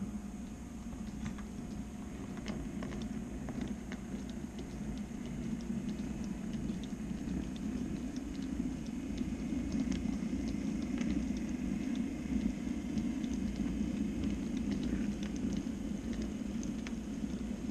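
N-scale model freight train rolling along the layout track: a steady rumble from the running gear with scattered light clicks, growing louder from about halfway through as the locomotive and wagons come past.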